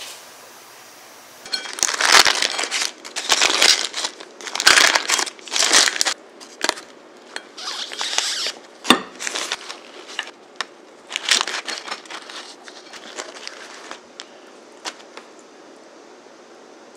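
Baking parchment crinkling in repeated bursts as a knife cuts a Basque cheesecake wrapped in it, starting about a second and a half in, with a sharp click about nine seconds in.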